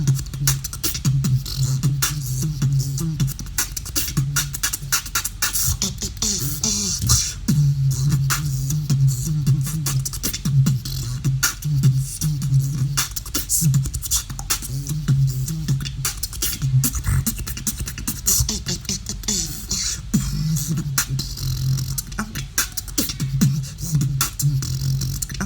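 Solo vocal beatboxing: rapid clicks and hi-hat and snare sounds over a low buzzing snore bass held in stretches of a second or two.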